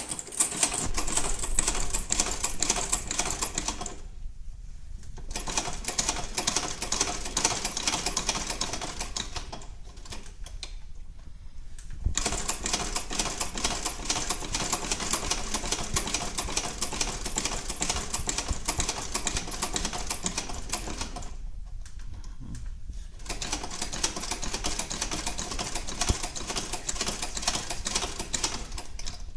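Singer 29K1 patcher sewing machine, turned by hand, stitching through leather: a steady fast mechanical clatter of the needle and feed mechanism. It stops briefly three times, about four seconds in, around the middle, and again about three-quarters of the way through.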